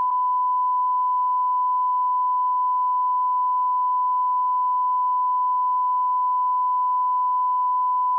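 Emergency alert system broadcast tone: a single steady beep at one high pitch, held unbroken.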